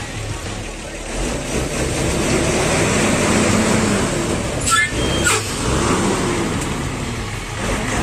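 A Ford chiva truck's engine running and revving as the stuck bus works in the mud, getting louder about a second in. Two sharp knocks, about half a second apart, come near the middle.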